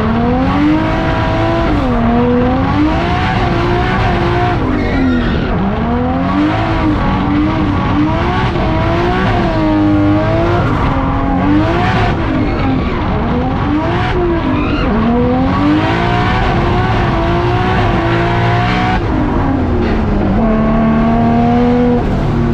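Drift car's engine revving up and down over and over through a drift run, its pitch rising and falling every second or two, with tyre squeal from the sliding tyres. Near the end the engine holds a steady note.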